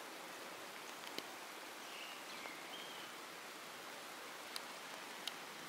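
Faint outdoor ambience: a steady soft hiss with a few light ticks and some short high chirps about two seconds in.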